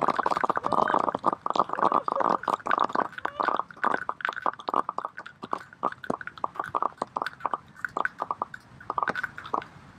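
Dozens of plastic film-canister rockets popping off one after another from a packed tray, a rapid crackle of sharp pops that is densest at first and thins out to scattered pops near the end.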